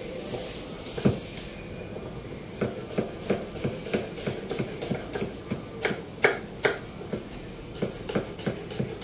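Knife chopping on a wooden cutting board: a single knock, then a steady run of strokes at about three a second, a few of them louder.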